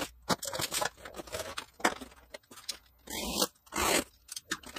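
Utility knife cutting through the tape and cardboard of a shipping box: a run of scrapes and sharp ticks, with two longer slicing strokes a little past halfway.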